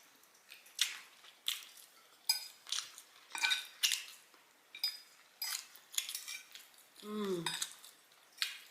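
Eating utensil clicking and scraping against a plate in a string of sharp, irregular clinks as food is scooped up. About seven seconds in there is a brief vocal sound that dips in pitch.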